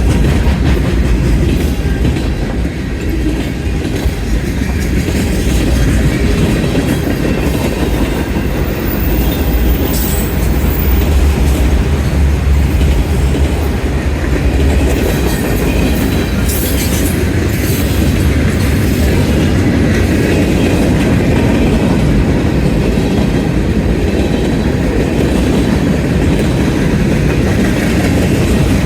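Freight train rolling past close by: a steady, loud rumble with the clickety-clack of wheels over the rails.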